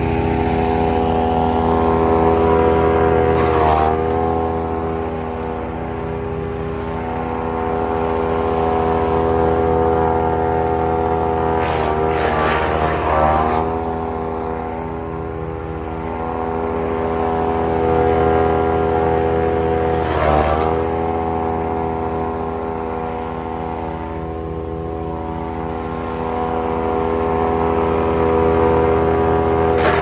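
Ravenger wood chipper's small petrol engine running steadily, its pitch sagging briefly three times, at about four, twelve and twenty seconds in, with a rush of chipping noise each time as it takes load.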